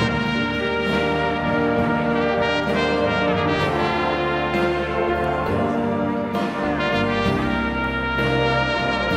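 Trumpet playing a gospel worship melody in long held notes over an instrumental backing track with a steady bass line.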